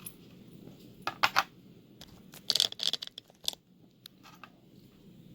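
Small metal clicks and clinks as a clip remover tool is handled against a Yale lock cylinder: a couple of sharp clicks about a second in, a quick jingling cluster of clinks in the middle, then a few single ticks.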